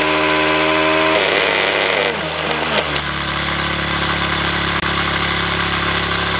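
Small brushed DC motor, overvolted, running at high speed with a steady whine, then a little over a second in winding down, its pitch falling over about two seconds as the power supply fails. A steady low buzz then carries on.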